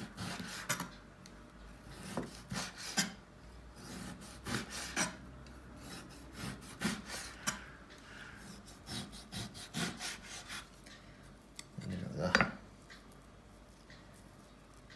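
Chef's knife slicing raw beef on a plastic cutting board, with irregular strokes of the blade cutting through and scraping against the board.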